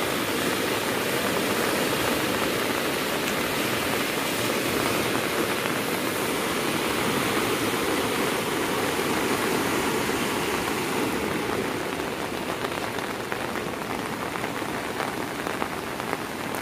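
Steady rushing of a fast-flowing river in flood, mixed with rain. It eases slightly about eleven seconds in.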